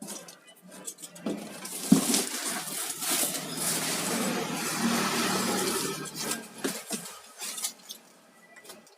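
Light metal clinks and knocks, then a few seconds of rustling, scraping noise as packing materials are handled and pulled away, then a few more scattered clicks.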